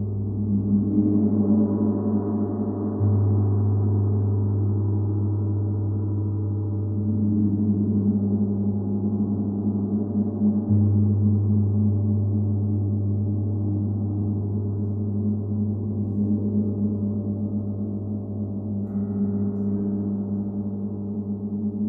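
Large suspended gongs played with a mallet: a sustained, dense low humming wash that keeps ringing, swelling again with fresh strokes about 3 seconds and about 11 seconds in.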